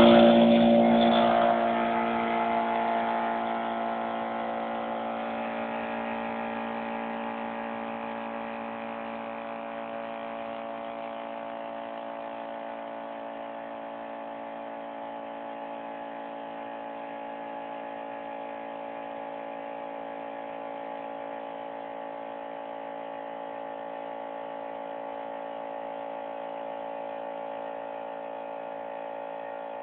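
Small Ferrari 6-litre air compressor switched on and running, filling its tank: a steady pitched motor-and-pump hum, loudest right at start-up and settling to an even level over the first several seconds.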